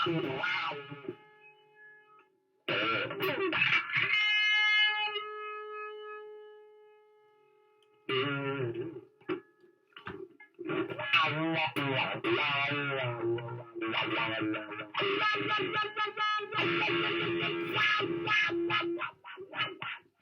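Distorted electric guitar, a Fender Stratocaster through effects, played in short bursts. A held note rings out and slowly fades a few seconds in. After a brief pause, busier, noisy playing fills most of the rest.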